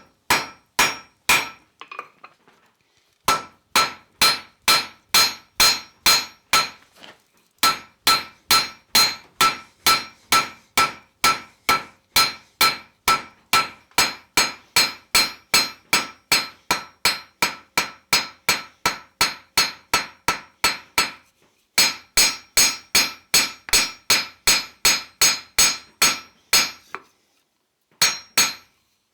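Blacksmith's hand hammer striking a 3/8-inch round steel bar on the anvil, forging the finial end. Steady runs of about two to three ringing blows a second, with a few short pauses between runs.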